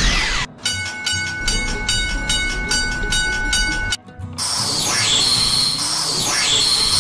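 Cartoon railroad-crossing sound effects: a crossing warning bell rings about three times a second. Just past halfway it gives way to a train passing, heard as a rush of noise with repeated falling whooshes.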